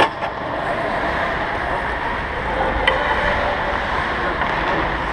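Steady ice hockey rink noise during play, with a sharp knock near the start and another about three seconds in.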